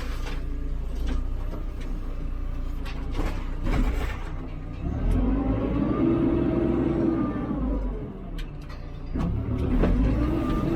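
HIDROMEK 102B backhoe loader's diesel engine revving up and dropping back as the hydraulics work: the revs fall near the start, climb about five seconds in, dip around eight seconds and rise again near the end. Sharp knocks and rattles are heard along with it.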